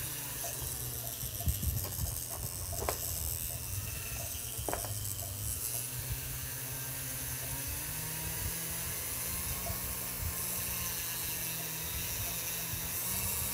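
Flexible-shaft rotary tool running steadily with a small polishing wheel pressed against a gold ring's bezel, finishing the metal smooth: a steady motor whir with two brief clicks, its pitch stepping up slightly about eight seconds in.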